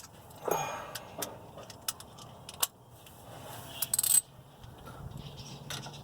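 Hand tools clicking and clinking on metal as the differential cover bolts are snugged down, with a short metallic ring about four seconds in.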